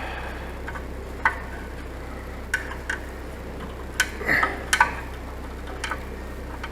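Scattered sharp metal clinks and taps, steel clamps being handled and set on the steel of a backhoe part, over a steady low hum, with a small cluster of knocks about four to five seconds in.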